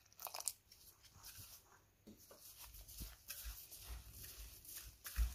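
Hands squeezing and rubbing crumbly coconut-cookie dough in a bowl as milk is worked in, making faint, irregular crunching and squishing, with a louder low knock near the end.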